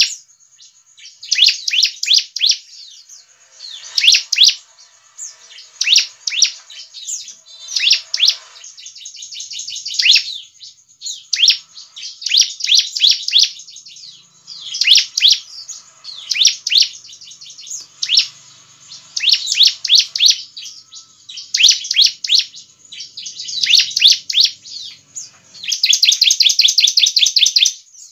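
Ciblek (bar-winged prinia) song: loud bursts of rapid, high chirps about a second long, repeated every second or two, with a longer unbroken run of fast chirps near the end. It is a recording played as a lure call to draw other ciblek to answer.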